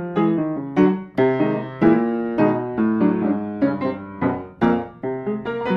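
Solo keyboard music with a piano sound: chords and a melody of struck notes, each ringing and then fading, about two new notes or chords a second.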